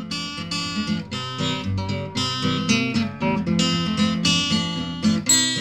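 Background music: acoustic guitar playing strummed chords.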